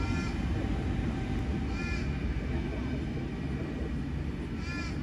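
Low rumble of a Sydney Trains C set double-deck electric train pulling away from the platform, slowly fading. A bird gives a short call three times, about every two and a half seconds.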